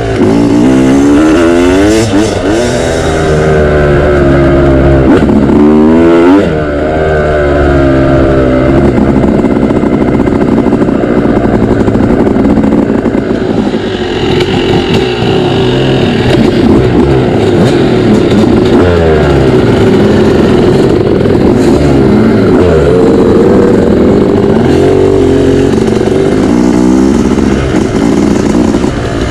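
Dirt bike engine running loud, revving up and down through the gears, its pitch rising and falling again and again in the first several seconds and in the second half, with steadier running in between.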